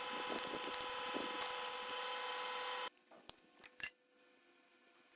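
Metalworking machine tool running with a steady motor whine and an uneven scraping cutting noise. It cuts off abruptly about three seconds in, followed by a few light clicks and one sharper knock.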